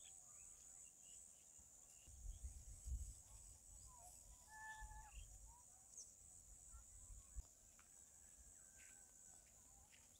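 Near silence of open farmland: a faint steady high insect hiss, a few short bird chirps about four to five seconds in, and some low rumbles near the start.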